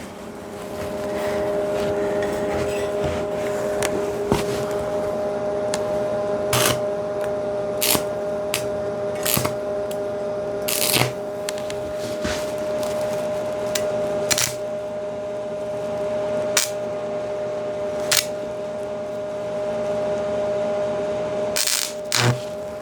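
Welding equipment running with a steady two-tone hum, with irregular sharp clicks and taps over it. It starts just after the beginning and cuts off near the end.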